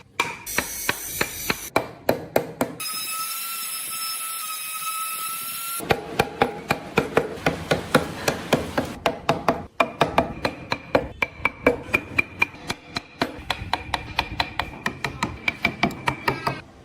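A mallet tapping a carving chisel into wood, with quick, even strikes about three or four a second. For about three seconds near the start, a small power tool runs with a steady high whine instead. Then the tapping resumes.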